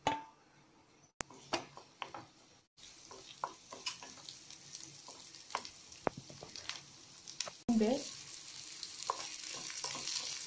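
Sliced shallots drop into hot oil in a non-stick pan and fry, sizzling, while a wooden spatula stirs and scrapes them with scattered clicks. A short pitched sound comes about eight seconds in, and the sizzle grows steadier and louder toward the end.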